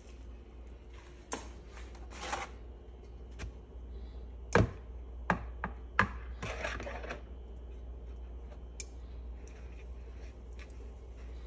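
Wire kitchen tongs clicking and knocking against a griddle and a mixing bowl while bread is handled and dipped in French-toast batter, with a few short wet rustles. The loudest knock comes about halfway through, followed by a quick cluster of clicks.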